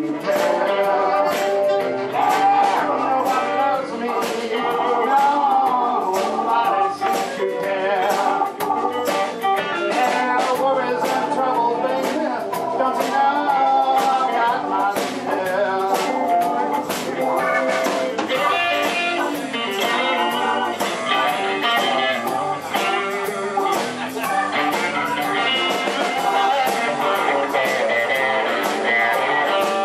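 Live blues band playing: amplified harmonica leads with wavering, bent notes over electric guitar, bass guitar and drums keeping a steady beat.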